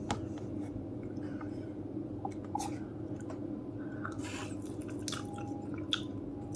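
A person chewing and eating instant cup noodles close to the microphone: scattered soft wet mouth sounds and small clicks over a steady low hum.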